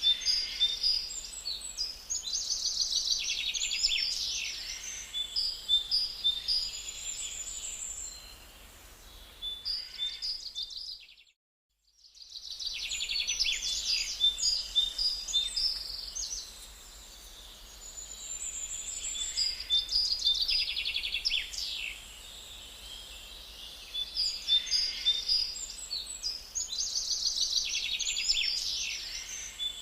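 Forest songbirds singing: recurring phrases of high chirps and rapid trills. The sound cuts out to silence for about a second near the middle, then the singing resumes.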